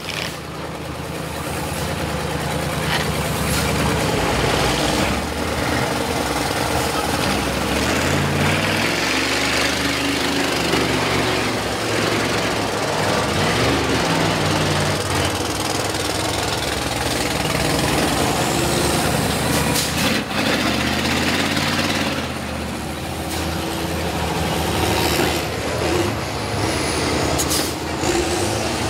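Several school bus engines revving up and down hard as the buses ram one another, with sharp crashes of metal on metal, one about twenty seconds in and another near the end.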